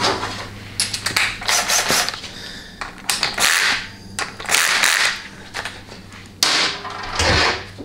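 Cordless impact driver run in four short bursts on bolts in a 700R4 transmission case, each burst a rapid rattling hammer.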